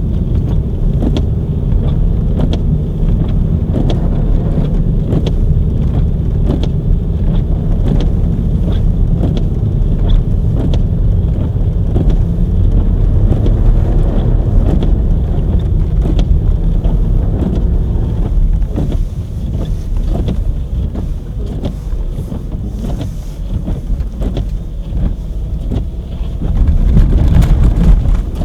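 Car driving on a snow-covered road, heard through a car-mounted camera: a steady low rumble of engine and tyres, with frequent short clicks. It swells louder briefly near the end.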